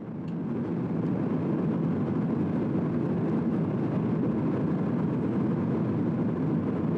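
Steady low rushing cabin noise of an airliner in flight, heard from inside the cabin, fading in over the first second and then holding level.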